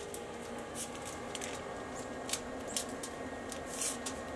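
Soft, scattered crinkles and rustles of aluminum foil and gloved hands as a smoked turkey breast is pulled out of its mesh netting, the most noticeable crackle a little before the end.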